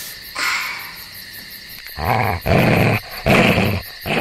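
Dog growling in four loud bursts of about half a second each, starting about two seconds in.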